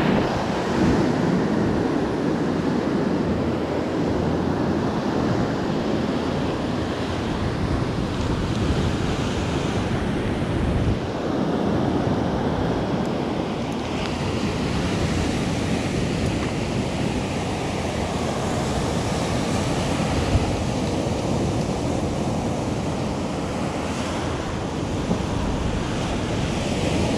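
Ocean surf breaking and washing up onto a sandy beach in a steady, unbroken rush, with wind buffeting the microphone.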